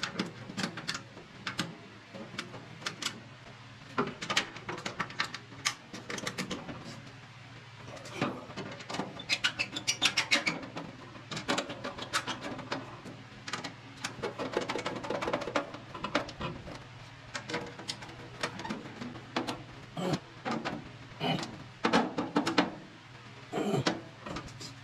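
Irregular metallic clicks and clinks of screws and a hand screwdriver working on a pellet smoker's sheet-metal hopper, sometimes singly and sometimes in quick clusters.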